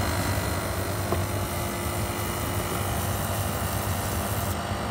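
A 100 V diesel oil burner running on a high blower setting: a steady rush of fan air and burning flame over a constant low hum.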